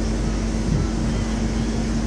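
Steady hum of a large passenger ferry's machinery, with a constant low tone over an even rushing noise.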